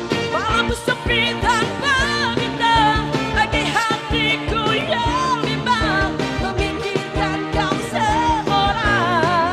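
A woman singing long, wavering, ornamented notes into a microphone over a live band with keyboard, electric guitar and drums. The band plays a steady beat under her.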